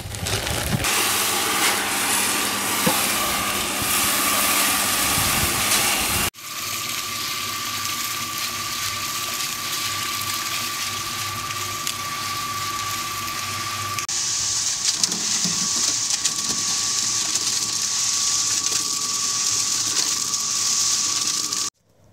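Cement mixer running, its drum turning a batch of cement, sand and pea shingle, a steady hiss with a constant high whine. The sound changes suddenly about six seconds in and again midway, and stops abruptly near the end.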